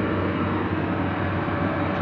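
Heavy diesel engine running steadily under load, with a steady high tone held over the engine noise.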